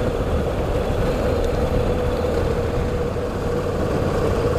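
Honda NC700X's parallel-twin engine running at a steady speed on a gravel road, a constant engine note over a low rumble.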